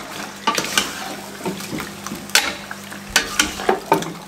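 Beef pieces frying in hot oil in a steel pressure cooker while a metal ladle stirs them, scraping and clinking against the pot at irregular moments. This is the browning (bhunai) stage of the meat.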